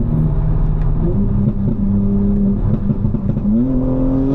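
BMW M4's twin-turbo S58 inline-six running at a steady cruise, its pitch stepping up slightly about a second in, then rising as it accelerates near the end.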